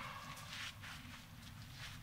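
Faint background noise with a few soft, short sounds; a louder sound fades out at the very start.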